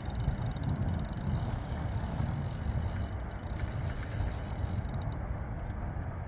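Penn Authority 5500 spinning reel clicking rapidly under the pull of a large wels catfish on the line; the clicking stops about five seconds in.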